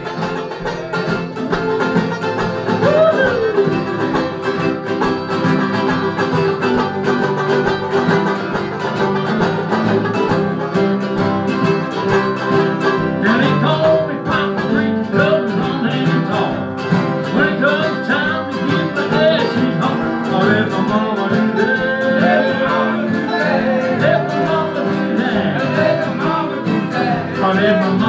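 Live acoustic string band playing: mandolin, two acoustic guitars and banjo picking a country-folk tune together.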